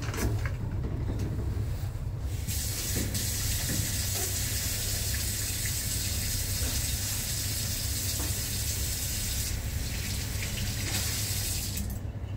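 Water running from a lever tap into a stainless steel sink as hands are washed under it, turned on about two and a half seconds in and shut off near the end. A steady low hum sits underneath.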